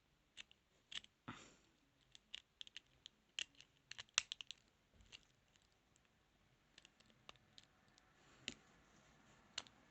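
Small, sharp metal clicks and scratches of a lock pick being worked inside a padlock, coming irregularly: a busy run of clicks in the middle, then a few scattered ones near the end.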